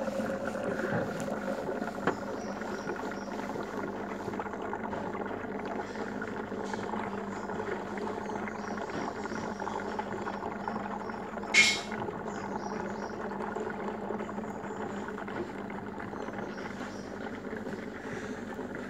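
Aquarium aeration bubbling steadily as a stream of fine air bubbles rises through the tank water. A single sharp click about two-thirds of the way through.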